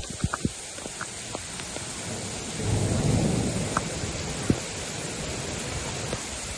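Steady hiss of heavy rain with scattered drop clicks, and a low rumble of thunder that swells and fades about three seconds in.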